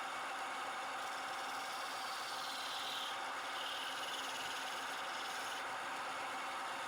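Wood lathe running steadily, with wood rubbing against the spinning workpiece for a few seconds in the middle.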